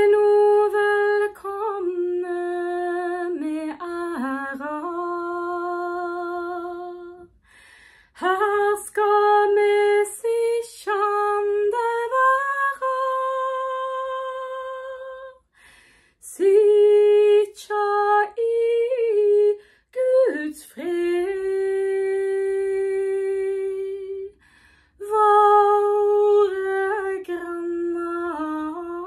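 A woman sings a traditional Norwegian welcome song unaccompanied, in folk style. It comes in four phrases with short breaths between them. Each phrase moves through small ornamental turns and slides and ends on a long held note.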